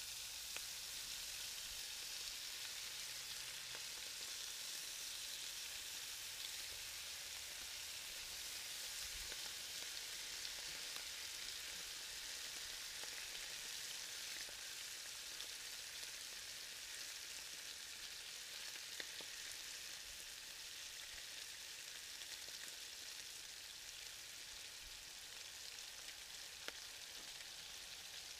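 Raw bacon strips frying on a hot Blackstone flat-top griddle: a steady sizzle with an occasional crackle.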